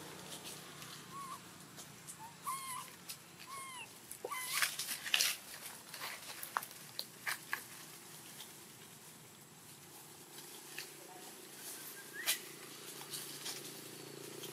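Young macaque giving a run of short, arching whimpering cries about a second in, and one rising cry near the end. Rustling and sharp scuffs in dry leaf litter, loudest about five seconds in.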